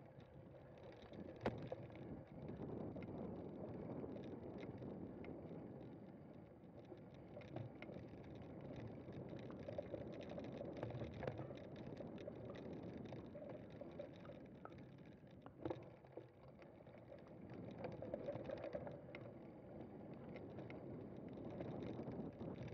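Cyclocross bike being ridden over rough ground: a steady rumble of tyres and frame with scattered rattles and clicks. Two sharper knocks stand out, about a second and a half in and near sixteen seconds.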